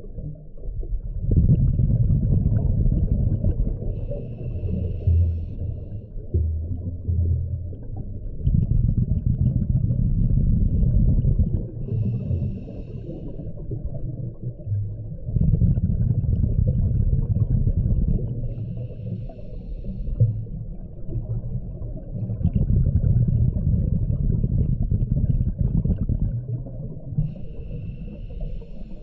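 Scuba diver breathing through a regulator underwater: exhaled bubbles rush out in long low rumbling gushes about every seven seconds, four times, with a short higher hiss from the regulator on each inhalation between them.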